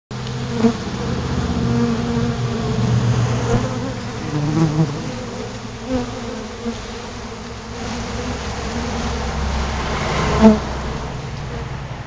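A crowd of honeybees buzzing at an open sugar-syrup jar feeder, a steady hum whose pitch wavers as individual bees fly close past the microphone, the loudest about ten and a half seconds in.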